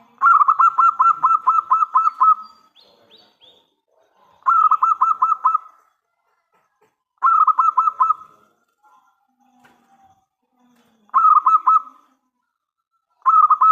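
Zebra dove (perkutut) singing: five bursts of rapid, evenly repeated cooing notes. The first burst lasts about two seconds and the later ones about a second each, a few seconds apart.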